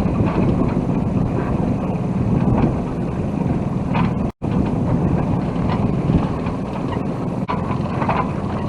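Strong wind buffeting the microphone aboard a sailboat under way, with water noise and a steady low drone underneath.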